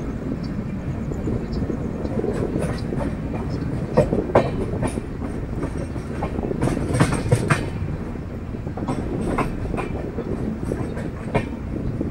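Steady rumble of a moving passenger train, with irregular sharp clicks and knocks as the wheels run over rail joints.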